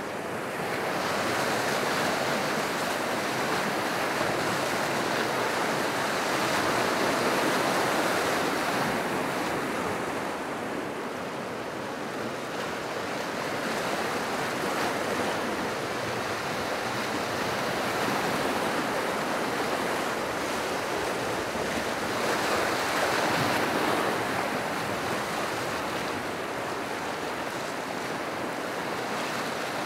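Whitewater rapids rushing over and around boulders in a mountain river, a steady rush of water that swells louder twice.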